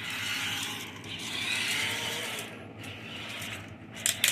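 Small geared electric motors of a WowWee Tribot toy robot whirring as it drives, louder for the first couple of seconds, then easing off, with a couple of sharp clicks near the end.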